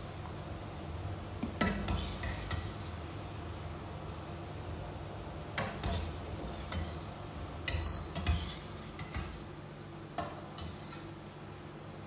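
Slotted stainless-steel skimmer knocking and scraping against a steel pot and a steel bowl while blanched potato sticks are scooped from the water, about nine or ten irregular clinks. A steady low hum runs underneath.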